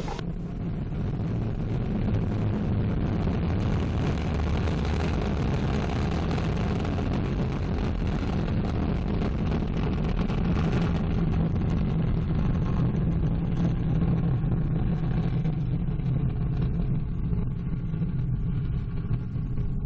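Ariane 5 ECA rocket at liftoff: the two solid rocket boosters and the Vulcain core engine make a steady, loud, deep rumble. The higher hiss in the rumble dies away about eleven seconds in, as the rocket climbs away.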